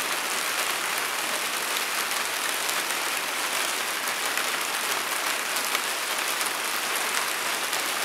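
Steady rain falling: an even, unbroken hiss.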